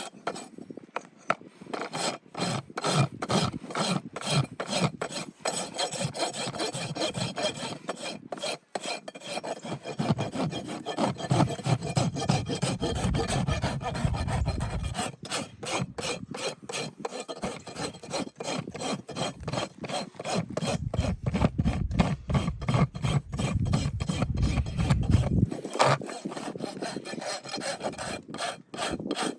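Farrier's rasp filing a horse's hoof: a long run of repeated back-and-forth scraping strokes, about two a second, with a few short pauses.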